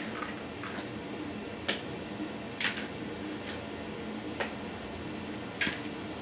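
About six short, scattered taps and rustles, irregularly spaced, over a steady low hum.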